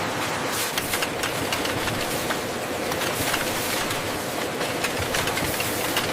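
Factory production-line machinery running: a steady mechanical hum and hiss with frequent irregular clicks and clatter.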